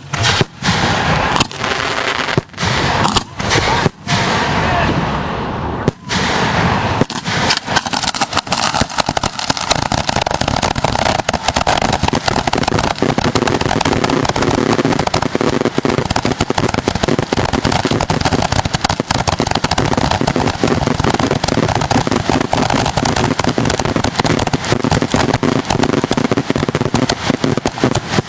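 Fireworks finale heard from close to the launch site. For the first several seconds there are separate loud bursts with short gaps between them. From about seven seconds in they give way to a continuous barrage of rapid bangs and crackling.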